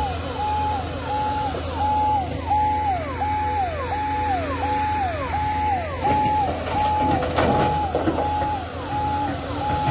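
Ambulance siren sounding a cycle about twice a second: a high held tone that drops to a lower one. Under it runs a steady low engine hum.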